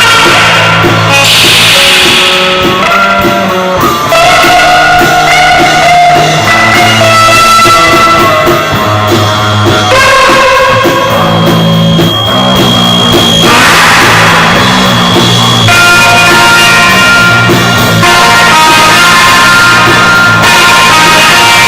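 Loud rock band recording: guitars playing held and shifting notes over a drum kit, with cymbal crashes.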